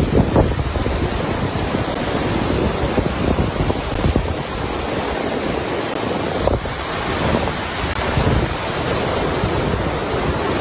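Ocean surf washing on the shore with wind buffeting the microphone in uneven low rumbling gusts.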